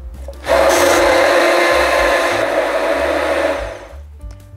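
Stick (immersion) blender running in a tall plastic beaker, puréeing shiso leaves into a liquid sesame dressing. After a brief lull it runs steadily for about three seconds, then winds down and stops near the end.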